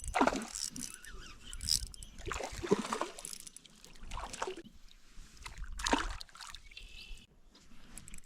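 Water splashing and sloshing in about four bursts a second or two apart, a hooked trout thrashing at the surface as it is fought on an ultralight rod.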